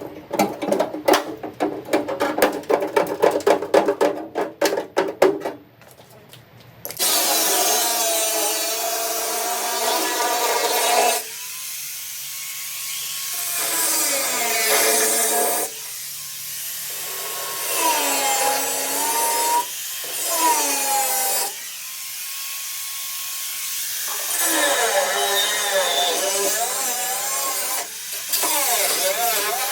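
A rapid run of clicks or knocks for about the first six seconds, then a power tool run in repeated bursts of a few seconds each, its pitch rising as it spins up, holding, and falling as it stops.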